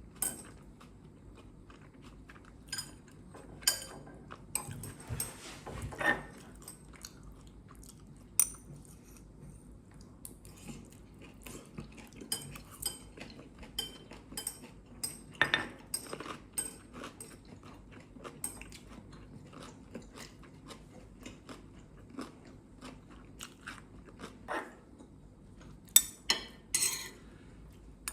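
Eating sounds at the table: chopsticks and cutlery clicking against dishes many times at irregular moments, with chewing and biting in between.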